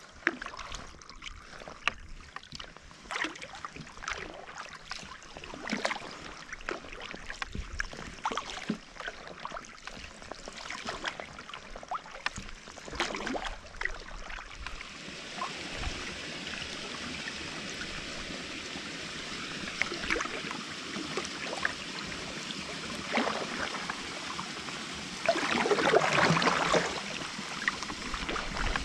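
Kayak paddle strokes in calm sea water: the blades dip and pull, and water drips and splashes off them at each stroke, with a trickle of water along the hull. A louder run of splashing comes near the end.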